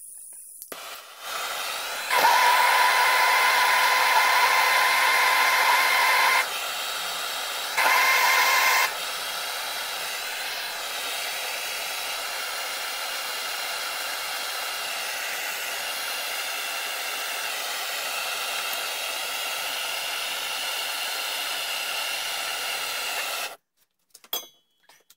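Gas soldering torch burning with a steady hiss as it heats the brass buttplate to flow soft solder onto the hook. The flame comes on about a second in, gets louder with a whistling tone twice early on, then burns evenly until it cuts off abruptly near the end.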